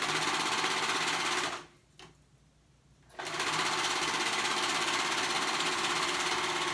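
Serger (overlock machine) running at speed, stitching a stretch-knit cuff onto a sleeve. It runs for about a second and a half, stops for a moment, then runs again steadily from about three seconds in.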